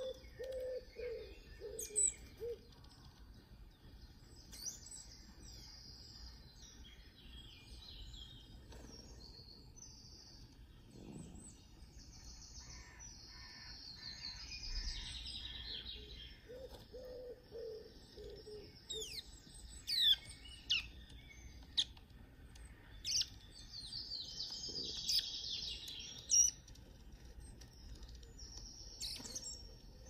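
Wild birdsong played back through a laptop's speakers: many high chirps and trills from several birds, with a quick run of sharp chirps about two-thirds through and a short series of low notes at the start and again a little past halfway.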